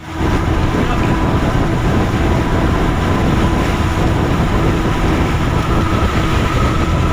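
Fishing boat's engine running steadily, a loud low rumble with a faint steady hum on top.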